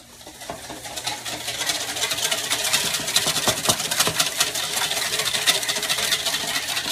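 Vinaigrette being stirred briskly with a utensil, a fast, continuous clatter of clicks and scrapes against its container that builds up over the first couple of seconds.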